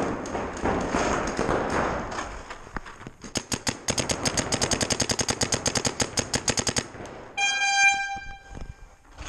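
Electronic paintball marker firing a rapid stream of shots, about ten a second, for roughly three and a half seconds. A second after the shots stop, a horn or buzzer sounds one steady tone for about a second.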